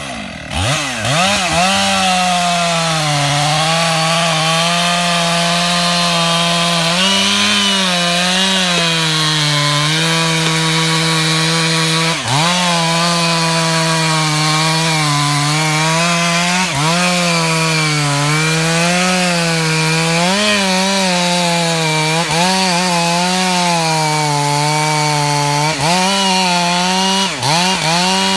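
Stihl MS 500i fuel-injected two-stroke chainsaw running at high revs through wood, its pitch dipping under load every few seconds, with a few sharp cracks.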